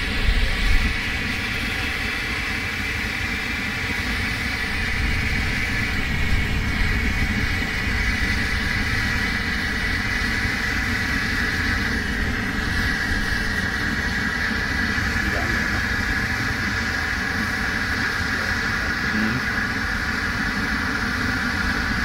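Funke Bengalux 200 Bengal fire pot burning with a steady hiss.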